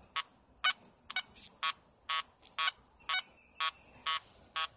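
Makro Multi Kruzer metal detector in four-tone mode at 5 kHz, giving short, sparky beeps about twice a second as the coil is swept back and forth over a dime buried about 10 inches deep.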